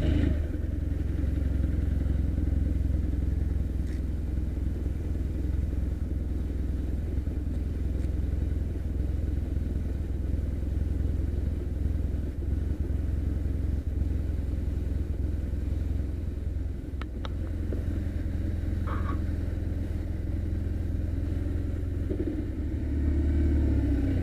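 Motorcycle engine running steadily with a low, even drone, with no marked revving.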